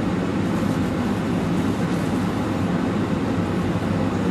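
Steady low cabin rumble inside a British Airways Boeing 747-400 on the ground before takeoff, its engines running at low power.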